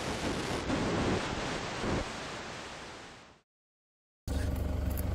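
A loud, even rushing noise that fades away about three seconds in and stops dead, leaving a second of silence. Near the end a steady low engine hum starts.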